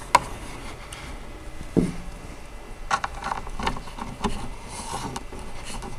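Light clicks and knocks of wooden high-chair parts being handled: the footrest rail is pressed onto its dowel against the side panel and a screw is set into its hole by hand. A duller knock comes just before two seconds in, and a quick run of small clicks about three seconds in.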